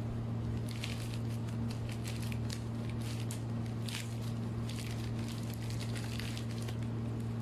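Plastic courier mailer bag crinkling and rustling in the hands as it is turned over and handled, with scattered short crackles over a steady low hum.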